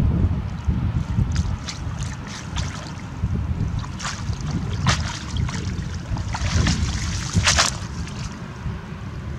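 Wind rumbling on the microphone, with several short splashes and drips as a wet cast net is hauled out of the water and dropped onto the grass; the sharpest splashes come about five and seven and a half seconds in.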